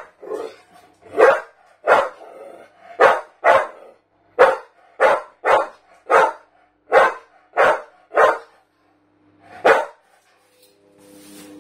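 Staffordshire bull terrier barking, about a dozen short, loud barks coming every half second to a second, with a last bark after a short pause about ten seconds in. A faint steady hum starts near the end.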